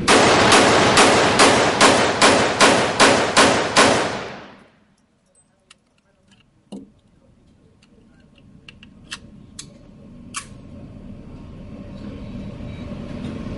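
A rapid string of gunshots, about a dozen in four seconds at an even pace, from a firearm fired as fast as the shooter can pull the trigger. The firing stops and the sound falls away almost to silence, with a few faint clicks and taps afterwards.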